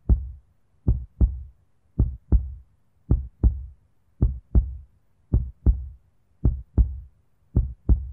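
Heartbeat sound effect: deep double thumps, lub-dub, repeating slowly and evenly, about one pair a second.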